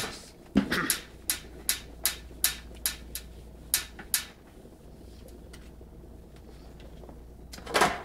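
Whiteboard eraser wiping marker off a whiteboard in quick strokes, about two swipes a second for the first four seconds, then a quieter pause and one louder swish near the end.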